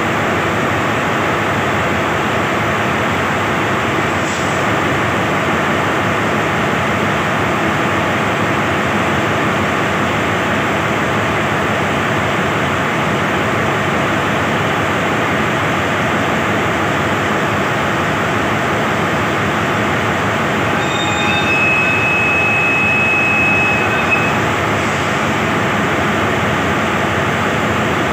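Heavy rain hissing steadily, with a stationary diesel locomotive's engine running underneath. More than twenty seconds in, a high, steady whistle-like tone sounds for about three seconds.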